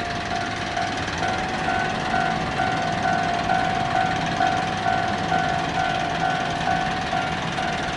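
Level-crossing warning alarm ringing in an even two-tone 'kan-kan' pattern at about two rings a second, over a steady rumble of a heavy vehicle going by.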